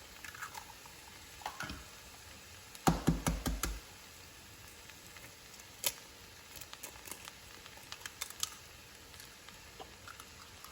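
Faint sizzling of a pan of fried rice frying on an electric stove, with a quick run of heavy knocks and clatter about three seconds in and a few light clicks of utensils later on.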